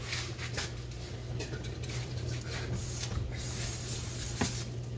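A cloth wiping a spill off a hot glass-ceramic electric cooktop, a series of irregular rubbing strokes, over a steady low hum.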